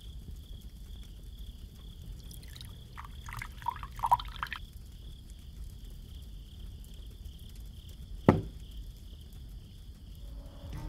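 Liquor poured from a glass bottle into a glass, a short gurgling pour starting about two seconds in, over a steady chirring of crickets. A single sharp knock about eight seconds in.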